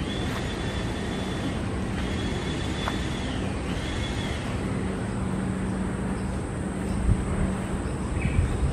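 Steady outdoor background rumble, with faint high whistling tones that come and go in the first half and two low thumps near the end.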